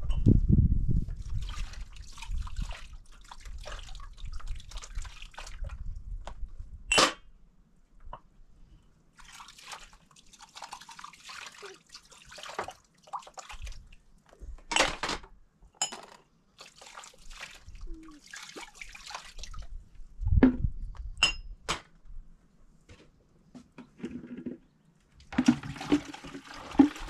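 Water poured from a plastic jug over glasses into a plastic basin, splashing and trickling, loudest in the first second. A few sharp clinks come as the glass cups are handled and set down on a metal tray.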